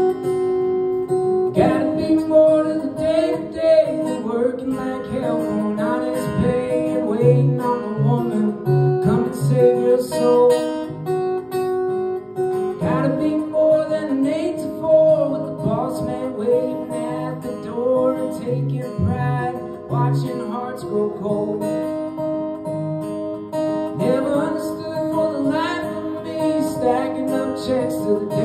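Acoustic guitar played live, a picked melody over a low bass note that keeps repeating.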